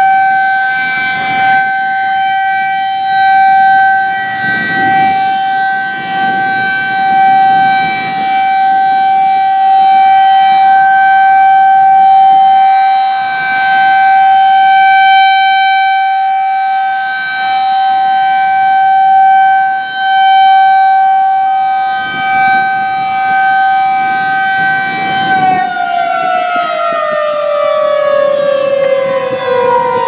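Federal Signal 2001-SRN electromechanical rotating tornado siren sounding a steady single tone for its monthly test, swelling and fading as the rotating horn sweeps around. About 25 seconds in the tone stops holding and the pitch falls steadily as the siren winds down.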